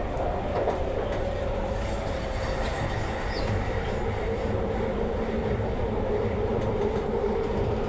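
Hyderabad Metro train running, heard from inside the carriage: a steady rumble of wheels on the track with a steady whine over it.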